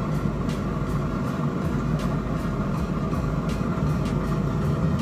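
Z Grills 1000-series pellet grill at start-up: its combustion fan runs steadily, blowing through the fire pot where the igniter has just lit the wood pellets, with scattered irregular clicks and crackles.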